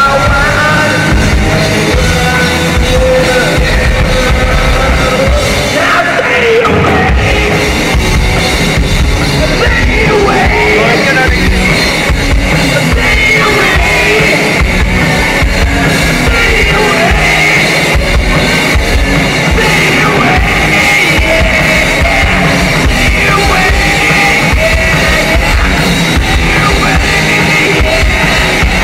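Live rock band playing loud: electric guitars and a drum kit, with singing over them.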